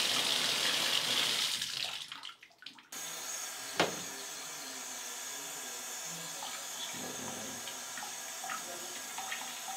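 Shower running, the spray loud and hissing for about two seconds, then fading. After that the water goes on as a fainter steady hiss, with a single sharp click about four seconds in.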